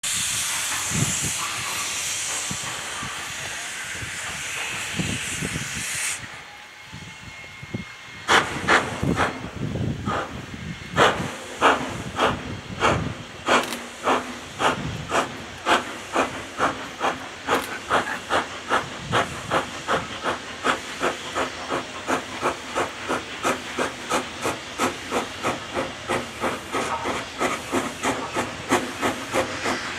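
Steam hissing steadily, stopping about six seconds in. From about eight seconds, the sharp exhaust beats of industrial 0-6-0 saddle-tank steam locomotives working hard to lift a heavy 18-wagon freight train, coming quicker until they run at about three beats a second.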